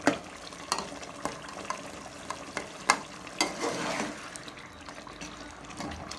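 Metal spoon stirring a chicken and tomato masala in an aluminium pressure-cooker pot, scraping and clinking against the pot several times, over the steady sizzle of the masala cooking on the heat.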